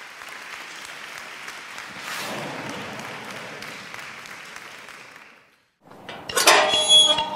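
Intro sound effect under an animated title: a hiss of noise that swells about two seconds in and fades away after about five seconds. Near the end a bright, ringing musical hit strikes, leading into the music.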